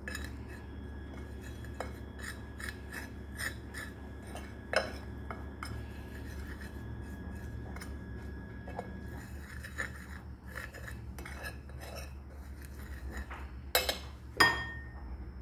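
Metal spoon scraping and tapping on a ceramic plate as it stirs a spice-and-olive-oil paste, with a light ringing from the plate, over a steady low hum. Near the end the spoon clinks loudly twice as it is put down in the plate.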